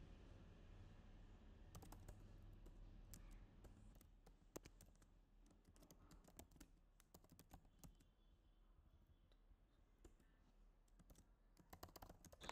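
Faint computer keyboard typing: scattered, irregular keystroke clicks in short runs.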